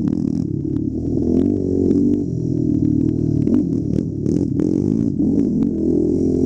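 ATV engine revving up and down as it is ridden hard over a bumpy dirt trail, with frequent sharp knocks and rattles from the jolts.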